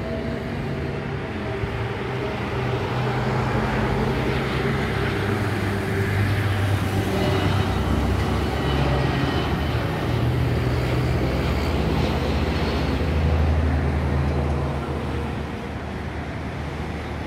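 Airbus A320neo airliner passing low overhead on landing approach, gear down: its jet engine noise builds over several seconds with a faint high whine, then falls away about three seconds before the end, leaving road traffic.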